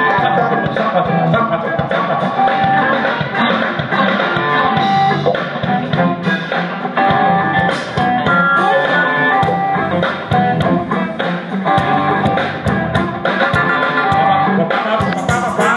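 A live band playing with guitar prominent, in a bluesy rock style, with held notes over a steady beat.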